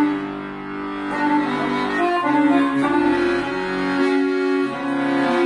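Chromatic button accordion playing a tune of held notes and chords.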